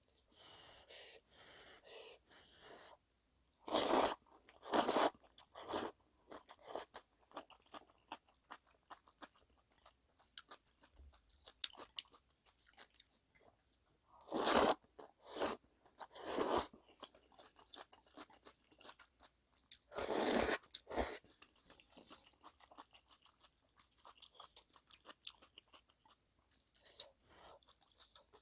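Close-miked eating: chewing and crunching of fresh napa cabbage geotjeori kimchi with seafood noodle soup. Soft wet mouth clicks run throughout, broken by a few louder crunchy bites about four, fifteen and twenty seconds in.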